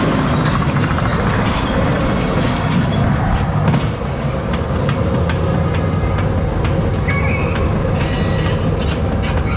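Ghost train car rolling along its steel track, a steady rumble with rattles and sharp clicks throughout. The clatter picks up about three seconds in, as the car bursts through doors onto the outdoor balcony section.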